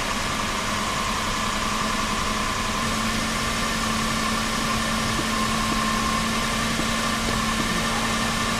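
Toyota Land Cruiser 100 Series V8 engine idling steadily, with a constant hum.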